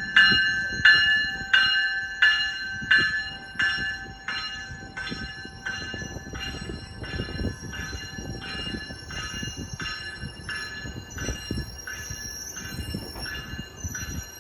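Train's warning bell ringing steadily, a stroke about every 0.7 s, loud at first and growing fainter after about four seconds. Low rumble of the moving train underneath, and a faint high wheel squeal toward the end.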